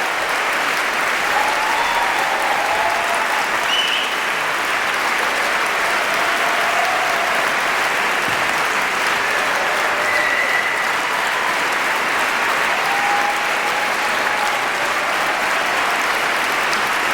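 Audience applause, steady and sustained, clapping from many hands after the chorus's song.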